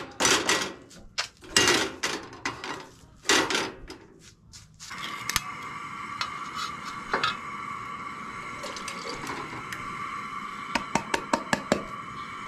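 Canned soup being emptied into a saucepan on a two-burner propane camp stove. Clattering and scraping of the pan and can come first. About five seconds in, a steady hiss from the stove sets in. Near the end there is a quick run of taps as the can is knocked against the pan to shake the soup out.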